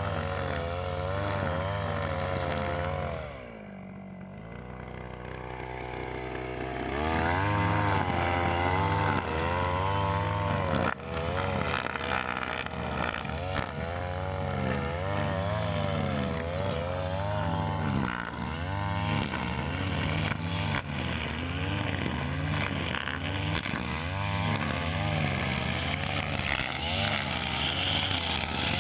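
Brush cutter (grass-cutting machine) engine running under throttle. It drops back toward idle about 3 seconds in, picks up again about 7 seconds in, and its pitch then keeps rising and falling as the throttle is worked.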